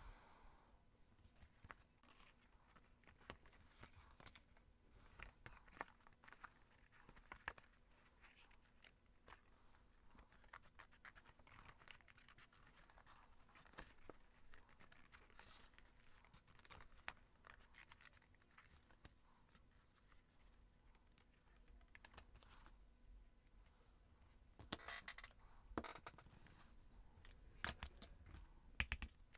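Faint paper rustling and snipping as a printed paper sheet is cut out with small craft scissors, with a cluster of louder rustles and light knocks near the end.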